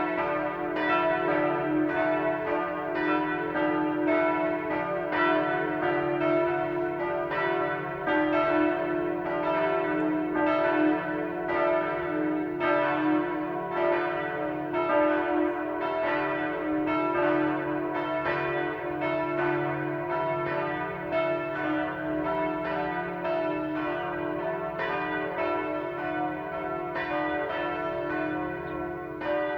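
Several parish church bells ringing together in a full peal. Their strokes fall unevenly, about two or three a second, over a steady sustained ringing.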